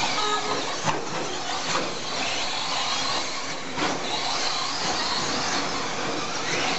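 2WD Slash radio-controlled short-course trucks racing on dirt: their motors and drivetrains whine, the pitch rising and falling as they speed up and slow, with tyres scrabbling on the dirt. A few sharp knocks come from the trucks, about a second in, near two seconds and near four seconds.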